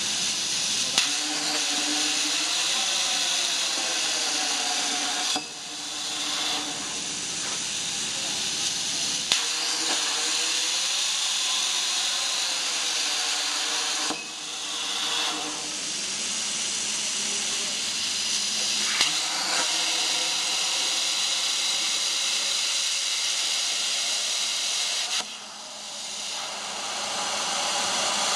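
Plasma cutting torch on a CNC pipe cutting machine hissing steadily as it cuts holes through a steel pipe. A sharp crack sounds three times as the arc strikes, and the hiss briefly drops away three times between cuts.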